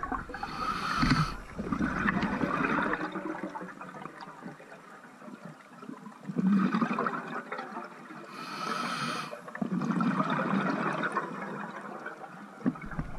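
Scuba diver breathing through a regulator: two hissing inhalations, each followed by bubbling exhaled air streaming from the regulator.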